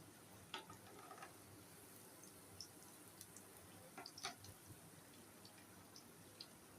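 Near silence with a few faint, short clicks and ticks scattered through it, the clearest about half a second in and a small cluster around four seconds in.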